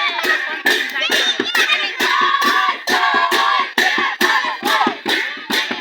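Recorded song with a steady drum beat of about two strikes a second and a singing voice over it, dance music of the kind used for a Sakela dance.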